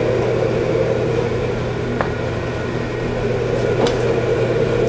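Steady mechanical hum and rush of a commercial wok range, with a light utensil click about two seconds in.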